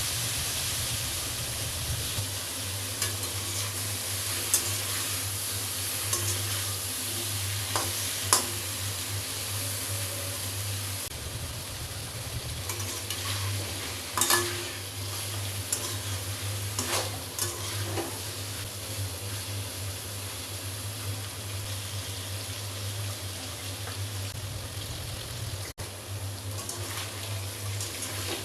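Pointed gourd (potol) slices frying in hot oil in a pan, a steady sizzle, with scattered clicks and scrapes of a spatula turning them. A steady low hum runs underneath.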